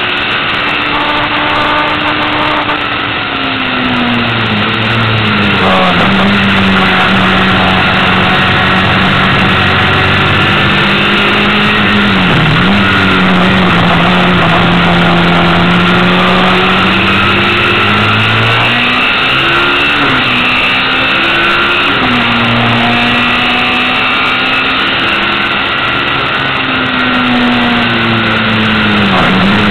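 Lola T496 race car's engine, heard from on board at racing speed. The note is loud and steady, and its pitch drops and climbs again several times as the car lifts and accelerates through the bends, with a quick sharp dip about twelve seconds in.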